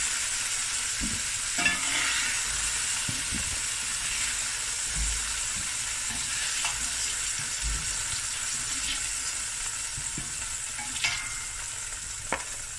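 Browned beef cubes sizzling in hot oil in a stainless steel pot, with a few clicks and scrapes of metal utensils against the pot as the meat is lifted out.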